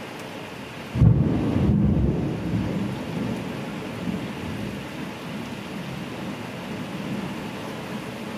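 Heavy downpour heard from inside a house, a steady hiss of rain. About a second in, a thunderclap breaks in with a sudden low boom and rumbles away over the next several seconds.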